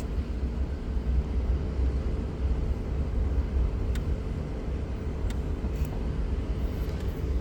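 CAT 242D3 skid steer loader's diesel engine idling steadily, a low rumble with a faint hum above it.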